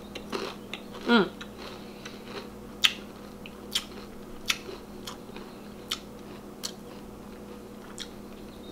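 Person chewing a mouthful of Pringles potato crisp with the mouth closed: a short hum about a second in, then sharp, scattered crunches every second or so.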